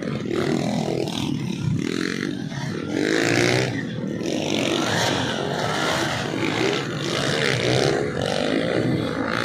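Dirt bike engines revving up and down as riders power through deep mud, the pitch rising and falling again and again.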